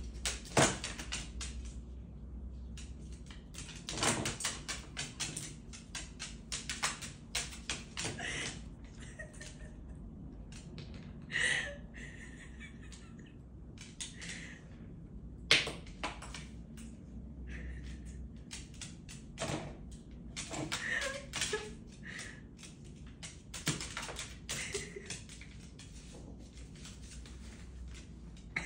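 Irregular taps and clicks of a white cockatoo's feet and beak on a hard tabletop as it walks and pecks about, with a few sharper knocks.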